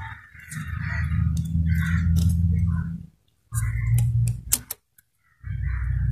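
Light metallic clicks of a piston ring being pressed into its groove on a diesel-engine piston by hand, over a low steady hum that cuts out twice, briefly.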